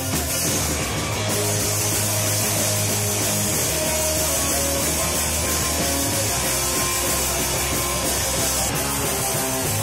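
Ska punk band playing live: electric guitars, bass and a drum kit with a singer at the mic.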